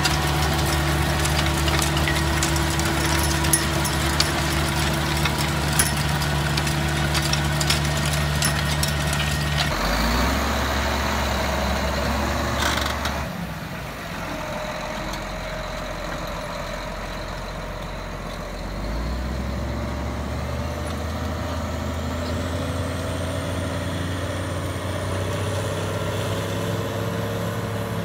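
Tractor engines running steadily under load while pulling tillage implements (a rotary tiller, then a ripper) through soil, with scattered clicks during the first ten seconds. The sound changes abruptly about ten seconds in and again about thirteen seconds in, each time to another steady engine noise.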